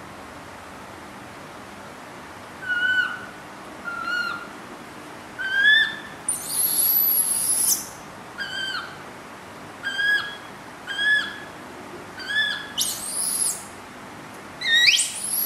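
Baby monkey calling: short whistle-like peeps about once a second, starting a few seconds in, broken by longer high-pitched shrieks around the middle, a little before the end and again at the very end.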